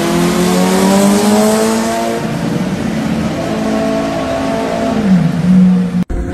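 Sport motorcycle engine accelerating hard, its pitch climbing steadily; about five seconds in the pitch drops briefly and climbs again, as at a gear change, before the sound cuts off abruptly.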